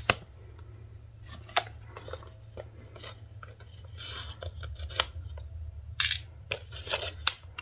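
Stone chip beads and a plastic bead organizer box being handled: scattered light clicks and taps of small hard pieces, with a brief crinkle of a plastic pouch near the middle. A steady low hum runs underneath.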